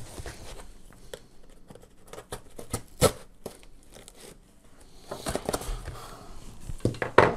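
Cardboard box being opened by hand: a sticker tearing and the cardboard rustling, with scattered small clicks and a sharp knock about three seconds in. The tearing and scraping grows busier in the last two seconds.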